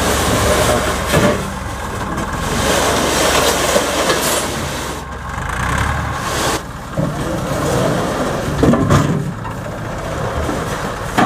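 Tractor engine running as its tipping trolley raises the bed, with metal pipes sliding off and clattering onto the ground in a few sharp knocks, the loudest late on.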